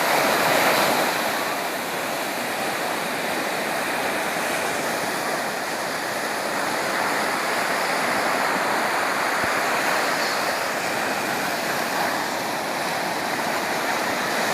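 Sea waves washing in a continuous rush of surf, swelling slightly in the first second or two.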